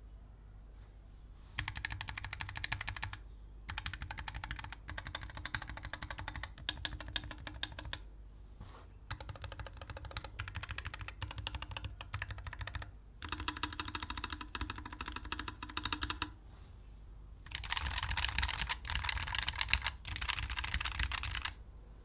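Keychron S1 low-profile mechanical keyboard with Gateron Low Profile Red linear switches and LSA double-shot PBT keycaps being typed on: rapid keystroke clicks in bursts of a few seconds with short pauses between. It starts about a second and a half in, and the last burst is the loudest.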